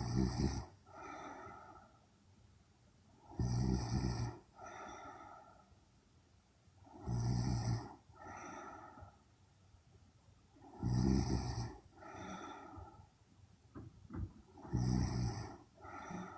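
A young woman snoring in her sleep. Each loud, rough snore with a low rumble is followed by a softer breath, repeating about every four seconds, five times.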